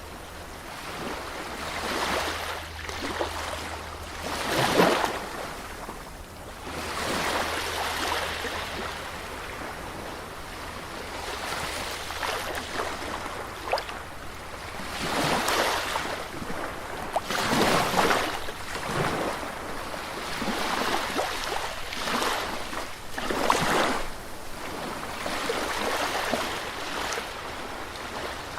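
Sea waves breaking and washing up on a beach, rising and falling in irregular surges every few seconds, the loudest about five seconds in.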